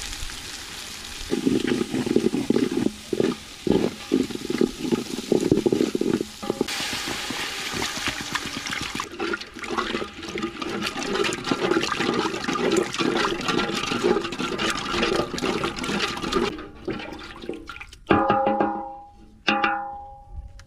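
Tomato base sizzling in a hot aluminium pot and being stirred with a wooden spoon, then water poured in with a rushing hiss and the sauce stirred as it simmers. Near the end, two loud knocks ring out and fade.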